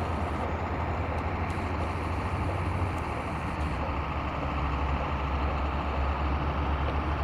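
Radio-control model aerobatic plane's motor running in flight. Its steady hum drops slightly in pitch about four seconds in.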